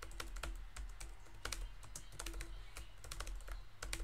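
Fast, continuous typing on a computer keyboard: a quick, irregular run of key clicks, over a steady low hum.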